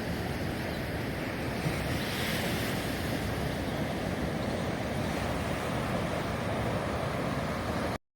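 Rough ocean surf washing and breaking on the shore, with wind buffeting the microphone; a wave rushes in a little louder about two seconds in, and the sound cuts off abruptly near the end.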